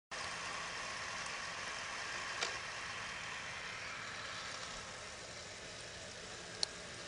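1:16-scale electric RC M41A3 Bulldog tank running, a steady hissing engine-like noise, with two sharp clicks, one about two and a half seconds in and one near the end.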